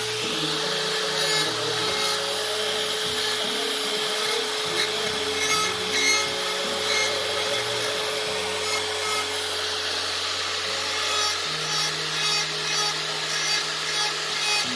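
Handheld electric rotary carving tool running with a steady whine as its small burr grinds feather texture into wood, with short bursts of scraping as the bit bites in.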